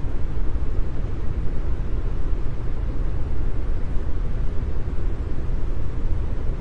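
Continuous brown noise: a steady, deep hiss weighted toward the low end, with no tones and no changes.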